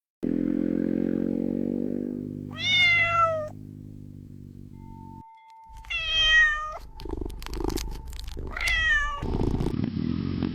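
A cat meowing three times, each meow sliding down in pitch and louder than everything around it, over a low steady hum.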